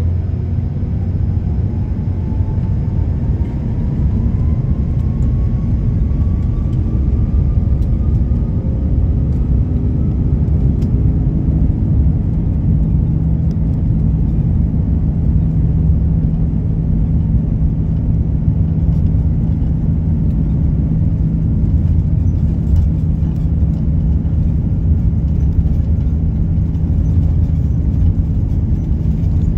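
Airbus A330-300 jet engines and airframe heard from inside the cabin: a loud steady rumble, with an engine whine that rises in pitch over the first ten seconds as power comes up, then holds steady.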